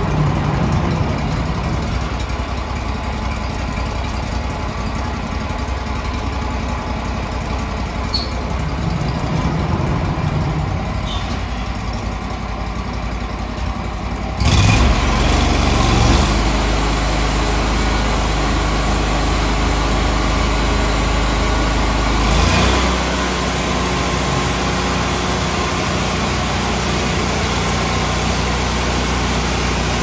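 Band sawmill running with a steady mechanical drone. About halfway through it steps up suddenly to a louder, deeper sound, and it shifts again some eight seconds later.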